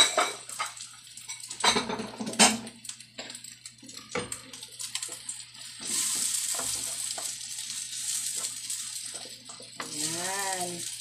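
Cold rice and beaten egg frying in a pan, sizzling while a spatula stirs and scrapes it, with a few sharp knocks of utensil against pan in the first few seconds and a steadier sizzle later.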